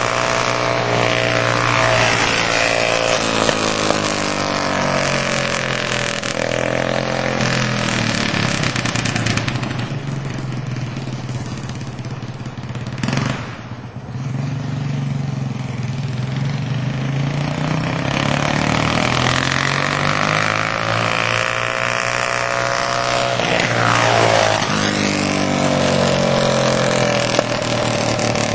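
Go-kart's Honda GX200 single-cylinder four-stroke engine, its pitch climbing and falling again and again as it is throttled up and let off. Around the middle the revs stay low for several seconds, with one brief sharp noise about halfway through.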